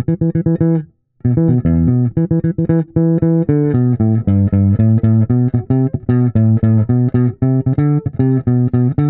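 Solo electric bass guitar, a Washburn Taurus T-24 four-string played fingerstyle near the neck pickup. A run of quick repeated notes on one pitch stops briefly about a second in, then a moving line of changing notes carries into the chorus.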